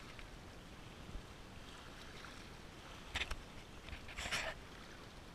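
Small waves lapping on a pebble and rock shoreline over a faint steady hiss, with a couple of brief splashes about three and four seconds in.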